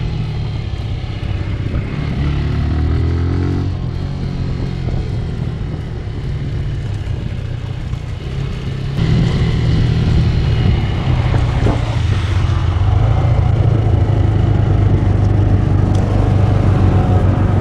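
Motorcycle engine running steadily, getting louder about halfway through.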